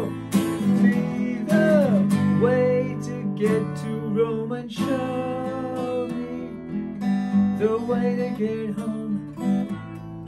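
Steel-string acoustic guitar strummed in chords, with a man singing over it in places.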